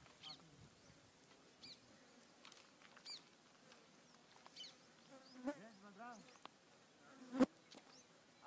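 Faint open-field ambience: an insect buzzes close by past the middle, its pitch wavering up and down as it moves. Short high chirps repeat about every second and a half, and a single sharp knock comes near the end.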